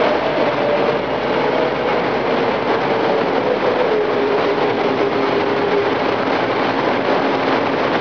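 Gehl loader fitted with a bucket sweeper attachment running, a steady loud engine and machinery noise with a whine that slowly falls in pitch.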